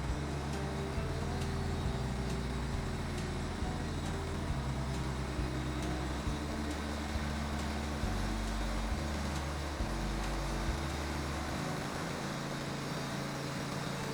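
Portable bandsaw mill's gasoline engine running steadily, with low tones that shift in steps about once a second until near the end.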